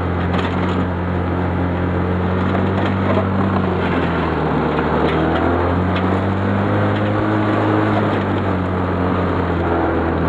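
Roketa 250cc ATV engine running steadily while the quad drives through snow plowing it, its pitch rising and falling a little with the throttle. A few faint clicks come through over the engine.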